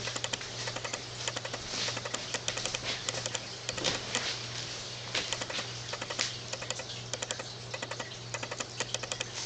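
Rapid, irregular light clicking and tapping, with a steady low hum underneath.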